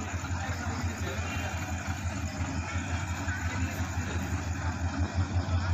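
Diesel locomotive engine running with a steady low rumble, slowly growing louder as the train approaches, with people talking nearby.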